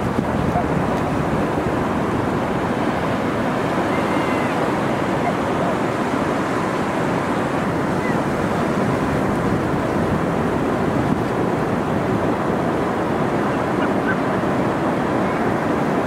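Pacific Ocean surf washing steadily onto a flat sand beach, a continuous rushing noise, with some wind noise on the microphone.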